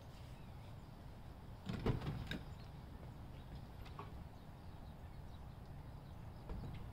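A pickup truck's door opening and shutting as someone gets into the cab: a quick cluster of clunks about two seconds in, with a smaller knock near the end.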